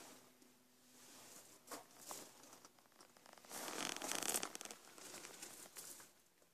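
Soft rustling and scuffing noises, coming and going, loudest about three and a half to four and a half seconds in.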